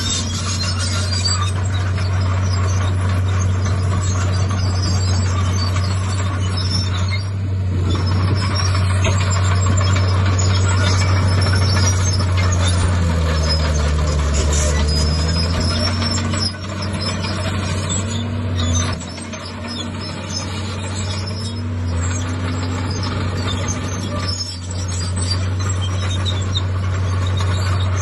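Heavy diesel engine of a Komatsu D51PX bulldozer running steadily under load. Between about 13 and 23 seconds in its pitch dips and rises as the load and throttle change, with a few brief drops in loudness.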